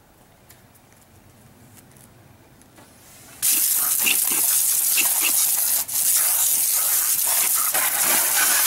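Water spraying hard from a PVC car-wash wand against an SUV's wheel and side panels, a loud steady hiss. The hiss starts suddenly about three seconds in, after a quiet stretch with faint handling clicks, and briefly drops out once a few seconds later.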